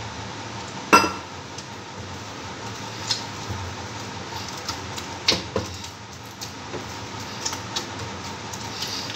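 Steel bowl clanking and knocking as atta dough is kneaded in it. One loud ringing clank comes about a second in, then lighter knocks and taps, over a steady background hum.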